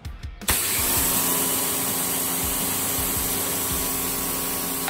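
Harbor Freight electric pressure washer spraying through its 40-degree fan nozzle. The pump motor hums steadily under the hiss of the wide spray hitting wet concrete. It starts suddenly about half a second in and cuts off right at the end.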